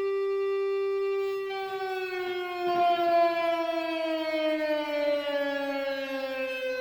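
Fender Telecaster electric guitar sustained by an EBow and played with a slide, imitating an air raid siren: one long held note, then a slow falling glide in pitch, with a short burst of noise about three seconds in.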